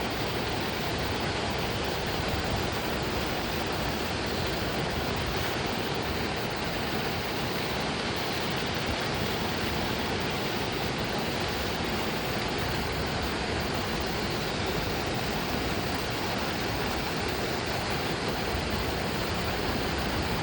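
Steady rushing noise with no distinct events, even from deep to high.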